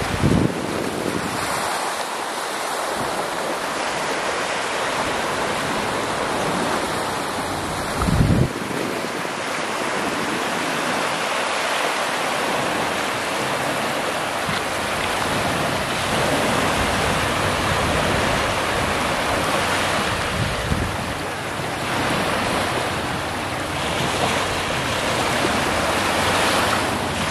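Small sea waves breaking and washing up a sandy beach, a steady hiss of surf. Wind buffets the microphone, with two short low gusts, one right at the start and one about eight seconds in.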